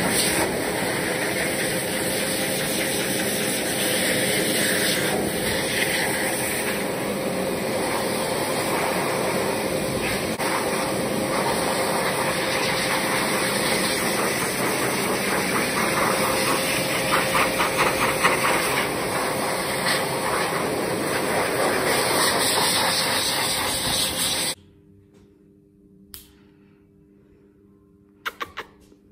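A pet grooming dryer blowing a steady rush of air from a handheld nozzle. It cuts off suddenly about twenty-five seconds in, and a few faint knocks follow.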